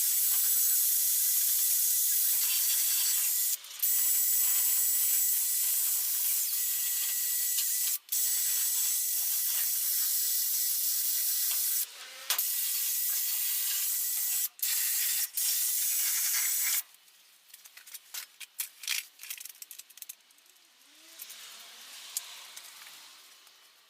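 Angle grinder abrading rust off the Mini's steel bodywork: a steady, hissing grind broken by a few short pauses, stopping abruptly about 17 seconds in. Light clicks and handling noises follow.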